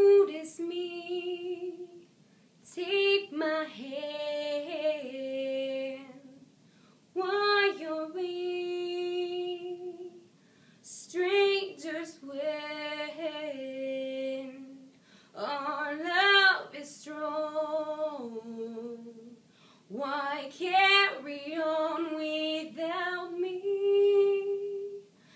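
A woman singing unaccompanied, a cappella, in slow held phrases with short pauses for breath between them.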